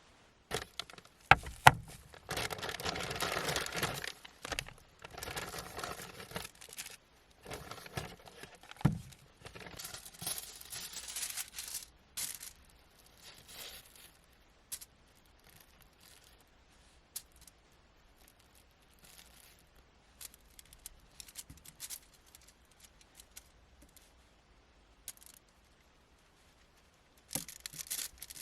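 Rustling and crinkling handling noises with sharp clicks and knocks, loudest in the first few seconds, then fading to sparse faint ticks before a fresh burst of rustling near the end.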